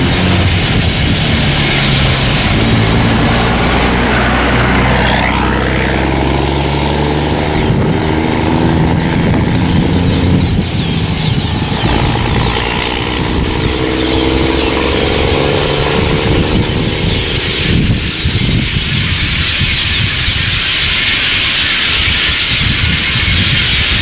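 A large flock of perched birds chattering and squeaking continuously. Under it, a motor vehicle's engine runs with a low hum that steps up and down in pitch and fades out about two-thirds of the way through.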